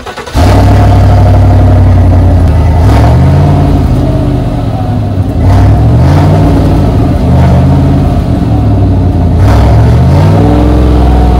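2019 Chevrolet Silverado's 5.3-litre naturally aspirated V8 heard at the dual exhaust tips, running at idle and revved briefly a few times, each rev rising and falling back to idle.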